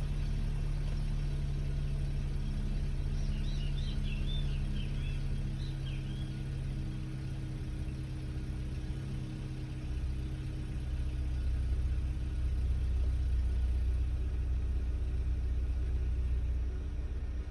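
Volkswagen Bora engine idling steadily at its first start of the day, with the unexplained noise its owner is asking about. About ten seconds in, a deeper low drone comes in and grows louder.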